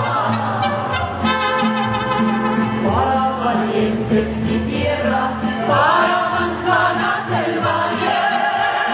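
A woman sings a Mexican corrido live, backed by a mariachi band. The voice glides between notes over rhythmically strummed guitars and a steady bass line.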